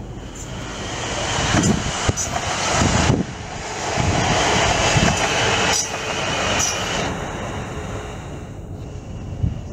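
Passenger electric multiple unit passing close by, its running noise building up and easing off near the end. Sharp clicks from the wheels crossing rail joints sound over a steady high whine.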